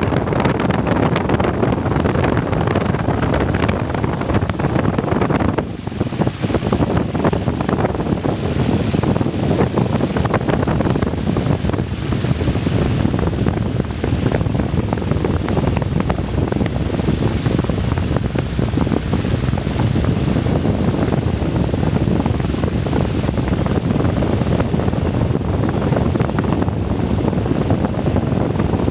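Loud, steady rushing noise with no clear pitch, of the wind-or-surf kind, holding on with only a brief dip about six seconds in.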